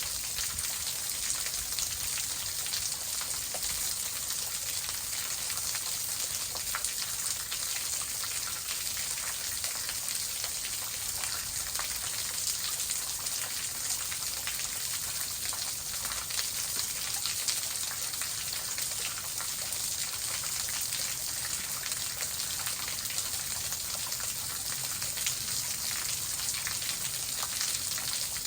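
Waterfall splashing steadily: a constant rush of falling water with a fine patter of drops.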